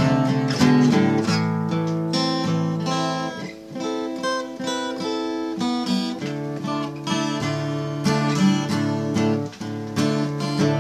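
Instrumental music led by acoustic guitar, plucked and strummed chords, easing off in the middle before picking up again.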